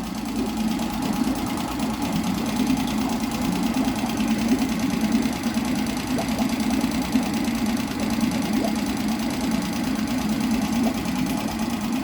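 Mariner 3.5 outboard motor running steadily without choke, its carburettor freshly cleaned.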